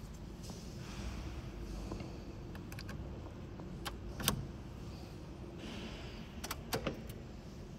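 Keys and key fob jangling, with a handful of sharp clicks as the key is handled and turned at the steering column of a Wuling Air EV; the loudest click comes about four seconds in. The electric car starts without any engine sound.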